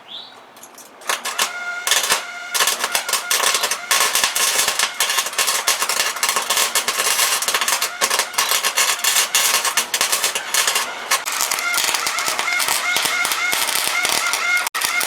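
MIG welder crackling on sheet-metal floor panels: dense, rapid clicking and sputtering that starts about a second in, with a warbling tone in the last few seconds.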